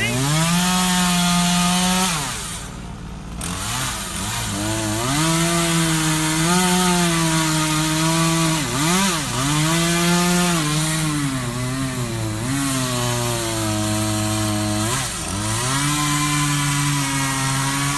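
Chainsaw revving up to full speed, easing off briefly about two and a half seconds in, then running at high speed through a cut, its pitch sagging and recovering several times as the chain bogs in the wood.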